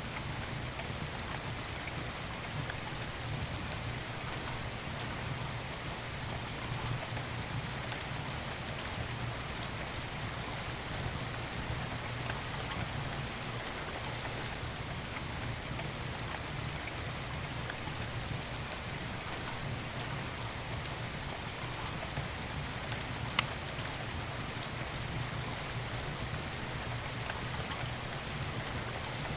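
Steady rain falling, with one sharp pop from a wood fire about three quarters of the way through.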